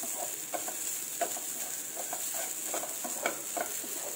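Wooden spatula stirring and scraping grated coconut around a nonstick frying pan, in short irregular strokes about two a second, over a light steady sizzle of the coconut roasting in ghee.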